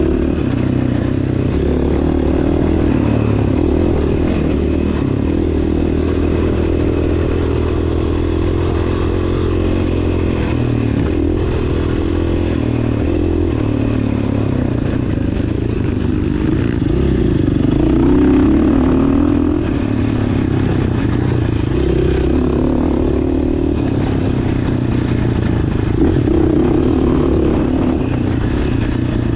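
GASGAS dirt bike engine running continuously on a rough dirt trail, its pitch rising and falling as the throttle is opened and eased off.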